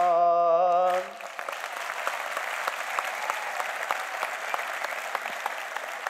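A man's voice holds the last note of an unaccompanied Turkish folk song (türkü) on "aman" for about a second, then a large audience breaks into steady applause.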